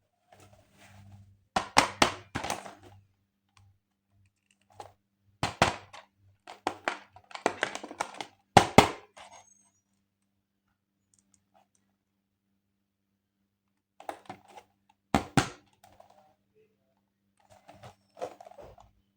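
Plastic toys and their packaging being handled: several bursts of clicks, taps and rustling, loudest about two, six and nine seconds in and again about fifteen seconds in, with quiet gaps between.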